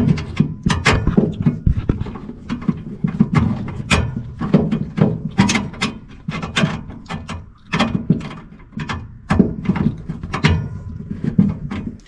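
Irregular clicks, knocks and rustling of furnace igniter wires and a plastic connector being handled and pushed against the sheet-metal furnace cabinet during the igniter rewiring, with a rumbling low handling noise underneath.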